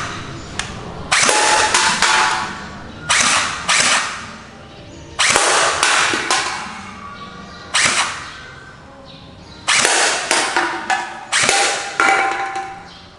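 Toy M416 rifle firing at targets in about seven short bursts, each starting sharply and fading away over a second or so, with single sharp clicks in between.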